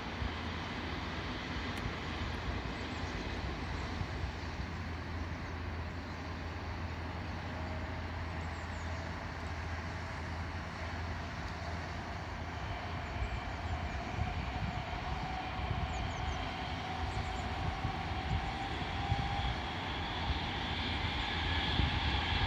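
Steady low rumble of distant engines and city traffic, with a faint whine slowly rising in pitch through the middle, the whole growing louder near the end.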